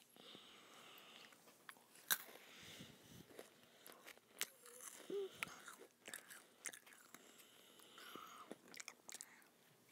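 Someone chewing crunchy chocolate-coated wafer balls from a Kinder Joy cup, faint irregular crunches and small clicks, the loudest about two seconds in.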